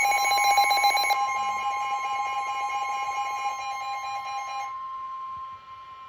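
Emergency alert warning tones for a severe thunderstorm warning: two steady pitches sounding together. The lower one cuts off about two-thirds of the way through, and the higher one carries on alone.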